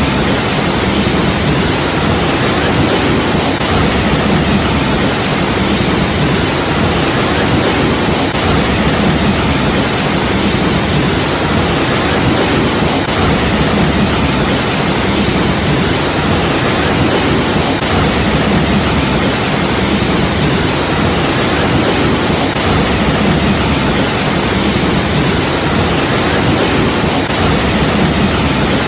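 Waterfall: falling water crashing steadily with a constant, even rush and no change in level.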